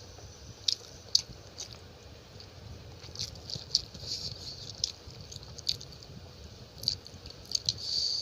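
A person chewing a mouthful of rice and chicken curry, with sharp wet mouth clicks and lip smacks scattered irregularly throughout.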